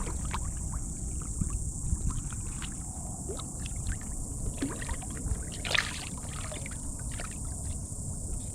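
Small knocks, taps and water sounds of a kayak and its gear being handled, over a steady low rumble, with one louder scuff or splash about six seconds in.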